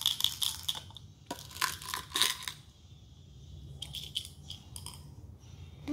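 Hard candy-coated chocolate sunflower seeds clicking and rattling against a plastic jar and its red cap: a quick flurry of sharp clicks for the first two seconds or so, then a few more about four seconds in as they are tipped out.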